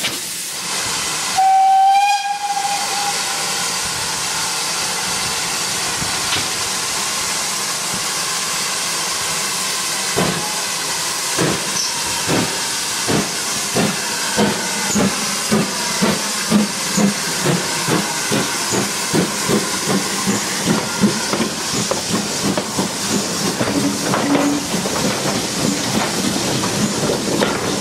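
GWR tank steam locomotive giving one short whistle, then hissing steam as it stands, then pulling away. Its exhaust beats start about ten seconds in and quicken steadily, from about one a second to about two.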